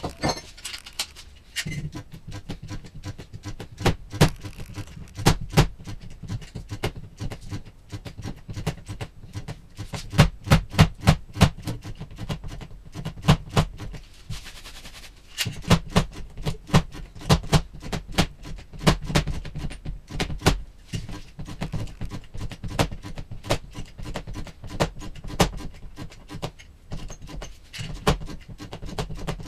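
Repeated sharp knocks and taps of a hand tool working a car's body panel, in irregular runs of several strikes a second, with a short lull about halfway through.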